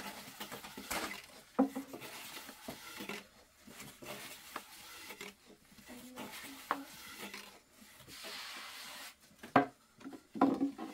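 Thin wooden rolling pins rolling and knocking on round wooden boards as flatbread dough is rolled out thin: soft rubbing broken by irregular wooden clicks and knocks, with a sharper knock near the end.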